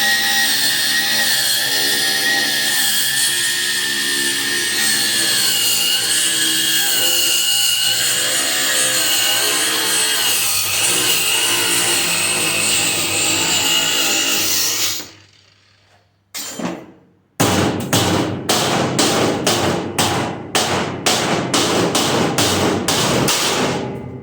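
Angle grinder cutting through a seized steel nut, its pitch wavering under load, then shutting off about fifteen seconds in. A couple of seconds later comes a quick run of sharp knocks, about two or three a second.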